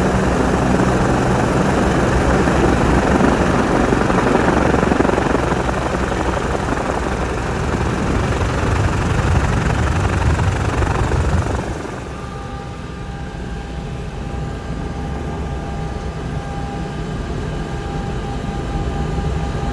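Helicopter turbine and rotor noise, loud and steady. About twelve seconds in it drops suddenly to a quieter turbine whine with a few steady high tones.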